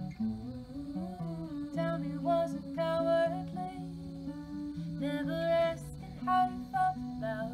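Women's voices singing long, held notes in close harmony over an acoustic guitar.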